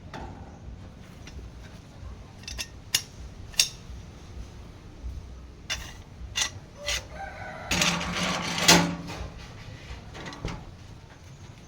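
Scattered sharp clicks and knocks, then a rooster crowing once for over a second about eight seconds in, the loudest sound here.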